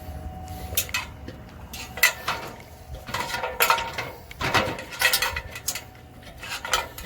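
Irregular metal clinks and clanks, about ten sharp knocks with short ringing, over a low hum.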